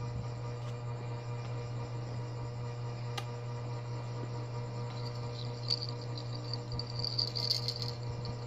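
Steady low electrical hum of room tone, with a couple of faint small clicks. A faint high, thin trill comes in about five seconds in and fades near the end.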